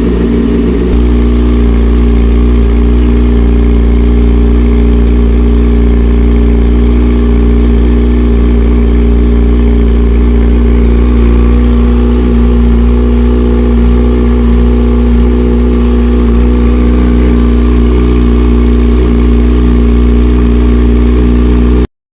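Kawasaki ZX-6R's inline-four engine idling steadily through an aftermarket exhaust, cutting off suddenly near the end.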